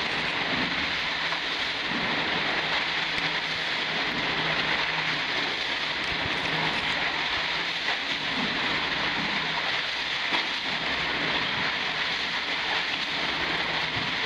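Underground cave stream running steadily, a constant hiss of rushing water.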